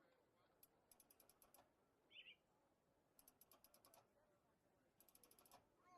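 Near silence, broken by three short runs of faint, quick, high-pitched clicks, about ten a second, and one brief chirp about two seconds in.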